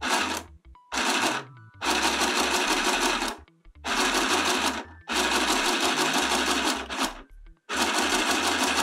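Handheld chain-stitch mini sewing machine stitching through thin cotton fabric. It runs in about six stop-start bursts, each half a second to two seconds long, with short pauses between them.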